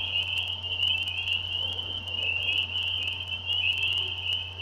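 A dense chorus of many frogs calling at once, blending into one continuous high-pitched shrill with no pause. It is a mass breeding chorus.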